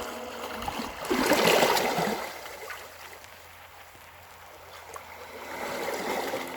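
Sea waves washing on the shore: a surge of surf about a second in that dies away, then a second, softer swell near the end.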